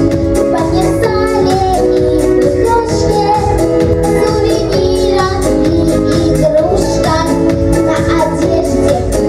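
A young girl singing over a pop backing track with a steady drum beat.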